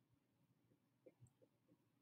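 Near silence, with a few faint short squeaks of a dry-erase marker writing on a whiteboard.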